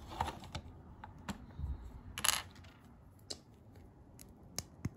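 Small ABS plastic LEGO pieces clicking and tapping as they are pressed onto a build, a few scattered clicks with a louder short clatter a little past two seconds in.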